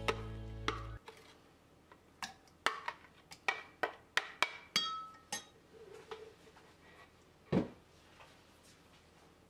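Background music cuts off about a second in. Then a metal spoon clinks and taps against a glass measuring cup about a dozen times as mayonnaise is spooned into it, some strikes ringing briefly. A single duller, heavier knock comes near the end.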